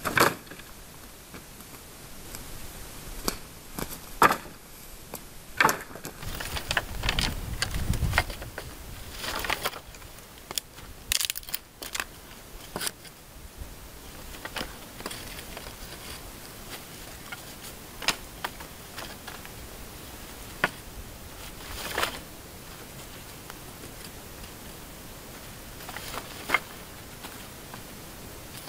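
Dry fallen branches and forest-floor leaf litter being handled and stepped on: irregular sharp snaps, cracks and crunches, busiest in the first half, with some low thuds as wood is moved.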